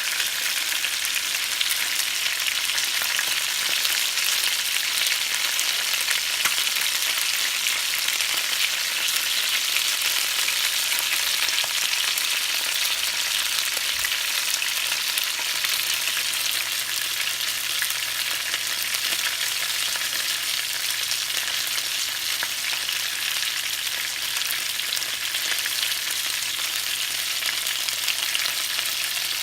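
Chicken pieces pan-searing in butter in a Copper Chef nonstick pan: a steady, dense crackling sizzle. The chicken is near done.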